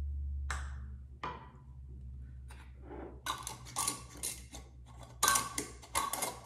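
Metal canning lids and screw bands clicking and scraping against small glass mason jars as the bands are screwed down by hand, a scattering of sharp clicks that bunch together in the second half. A low steady hum runs underneath.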